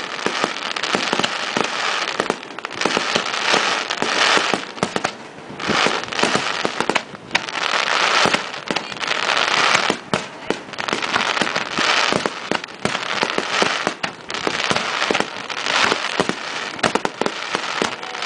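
Aerial firework shells bursting in quick succession, a dense barrage of overlapping bangs with continuous crackling from the bursting stars.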